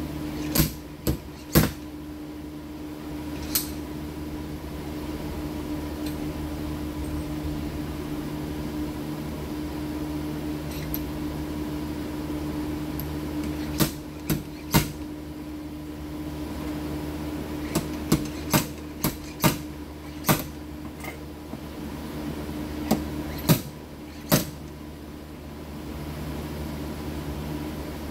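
Irregular sharp knocks and taps, some in quick runs of two or three, over a steady machine hum, typical of hand-tool work during auto body repair.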